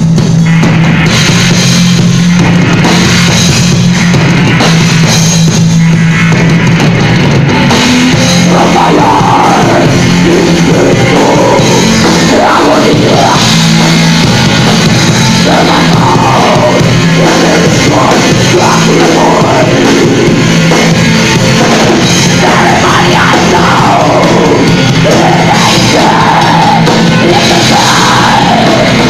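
Doom metal band playing live at high volume: distorted guitar, bass guitar and drum kit in a slow, heavy groove. A woman's singing voice comes in over the band about eight seconds in.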